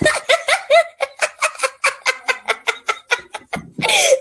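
Person giggling: a quick run of short pitched laughs, about five or six a second, with a louder burst near the end.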